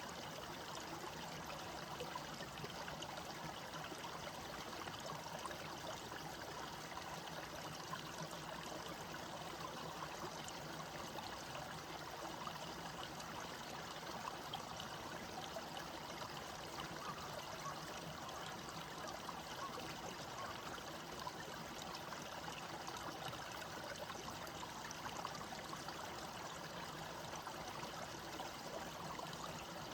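Small stream running steadily, water trickling and babbling over stones.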